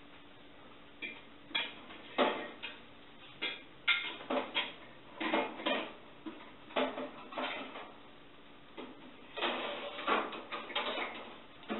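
Metal baking tray clattering in an oven as it is handled and slid back in: irregular knocks and scrapes of metal on metal, in clusters.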